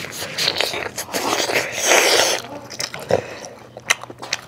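Close-miked eating: spaghetti being slurped off chopsticks and chewed, loudest about two seconds in, with a few sharp clicks near the end.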